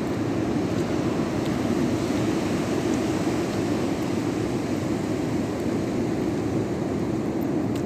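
Rough sea at high tide: a steady, unbroken rush of surf breaking on the shore.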